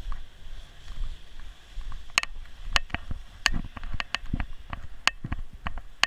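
Movement noise from a camera worn by a walking Newfoundland dog: irregular sharp clicks and a few dull knocks, a dozen or so spread unevenly, as the mount jostles with his steps through snow.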